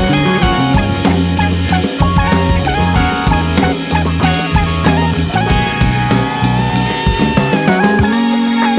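Background music with drums and a steady beat, guitar and melody lines.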